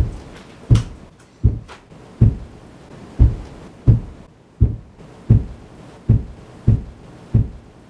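A series of dull, low thumps, about ten of them, a little less than one a second and not quite evenly spaced.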